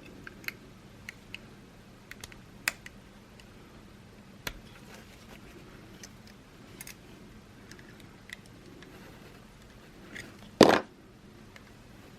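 Scattered light clicks and taps of a small tool working at the plastic shell of a remote key fob, with one louder clack about ten and a half seconds in.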